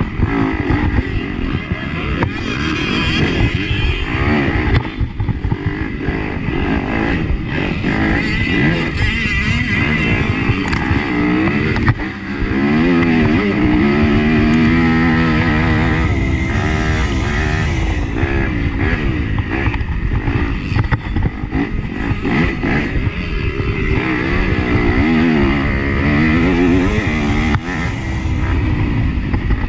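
Dirt bike engine running hard, close to a chest-mounted camera, its pitch rising and falling as the rider opens and closes the throttle and shifts through the gears. The loudness dips briefly about twelve seconds in.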